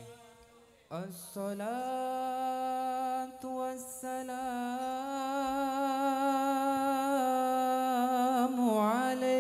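A single voice singing one long held note of a sholawat devotional song. It slides up into the note about a second in and wavers in ornaments near the end.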